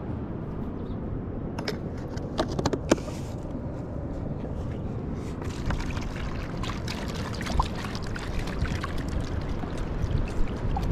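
Steady low wind noise on the microphone, with a few sharp clicks of a metal spoon scraping a plastic jar about two to three seconds in. Near the end, water splashes from a plastic jerrycan into a plastic bowl.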